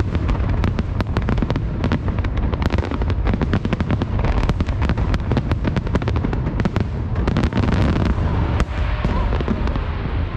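Aerial fireworks shells bursting in a dense volley: many sharp bangs in quick succession over a continuous low rumble.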